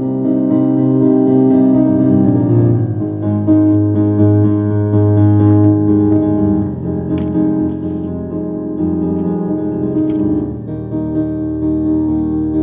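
Background music on a keyboard instrument: slow, sustained chords that change every few seconds.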